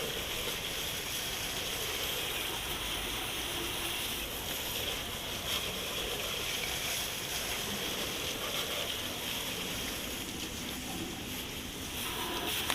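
Steady rush of water spraying onto a cast-iron Ford FE V8 engine block, rinsing the soap off the cylinders.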